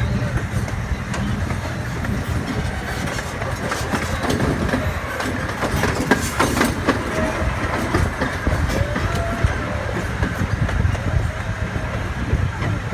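Park excursion train rolling along its track, heard from a passenger car: a steady low rumble of wheels on rails with clickety-clack over the rail joints, with a burst of clacks about six seconds in.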